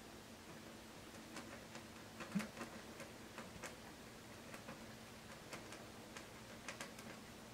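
Cat eating dry kibble with its head inside a plastic food bin: faint, irregular crunches and clicks of kibble, with one louder knock against the bin about two and a half seconds in.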